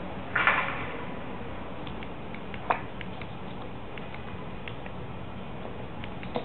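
Scattered light clicks of a kitten's paws tapping the keys of a laptop keyboard, one sharper click near the middle, over a steady hiss. A brief rushing noise comes about half a second in.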